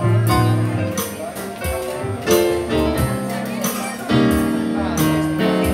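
Live jazz band playing a slow blues instrumental passage: keyboard piano chords over upright bass, with a steady beat of sharp attacks.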